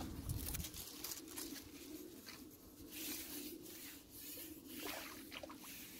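Faint small splashes and lapping of water at the surface as a hooked roach is drawn over the landing net, with a few soft ticks of handling.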